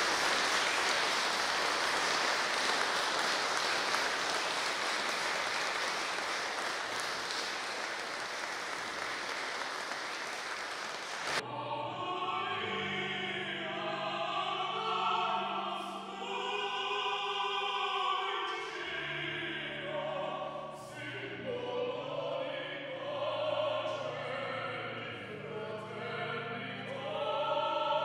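Audience applauding for about eleven seconds, cut off suddenly, then music with sustained singing voices.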